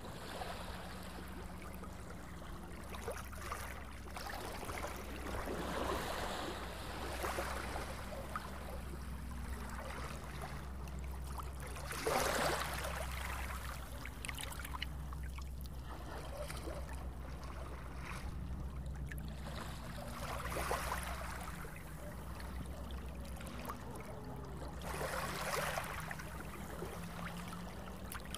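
Sea water lapping and washing in swells every few seconds over a steady low rumble; the swell about halfway through is the loudest.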